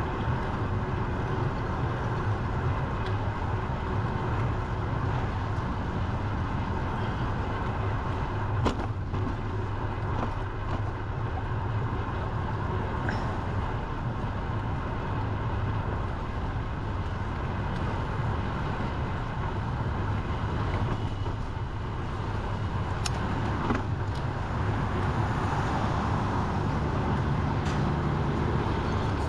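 Steady low rumble of road traffic heard from a moving bicycle, with a couple of brief sharp clicks.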